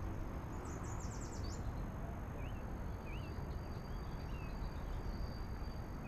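Wind rumbling steadily on the microphone, with birds singing over it: a fast high trill about a second in and short chirps every second or so.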